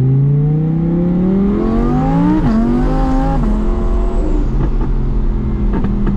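Twin-turbo Audi R8 V10 engine, heard from inside the cabin, accelerating hard with its pitch climbing. It upshifts twice, about two and a half and three and a half seconds in, then runs at a steadier pitch.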